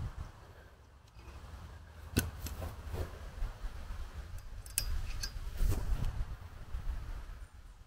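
About five light, sharp clicks and knocks spread over several seconds, over a steady low rumble.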